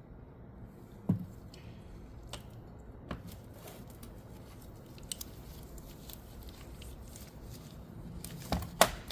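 Scattered clicks and knocks of steel manual-transmission parts, gears, synchros and rings, being handled and fitted together on the shaft: a knock about a second in and two louder knocks near the end.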